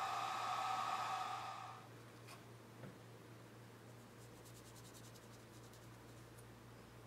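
Algolaser DIY kit laser engraver whirring steadily with a whine; it stops about two seconds in. After a small knock, faint quick rubbing strokes follow as a tissue wipes black paint off the engraved glass.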